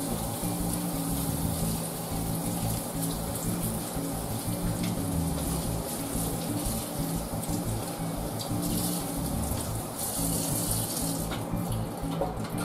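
Kitchen faucet running steadily as celery stalks are rinsed under it in the sink, the water shutting off near the end.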